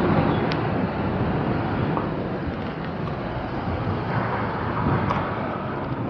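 Wind buffeting the microphone and the electric unicycle's tyre rolling over loose gravel and dirt, a steady rushing noise with a few faint clicks.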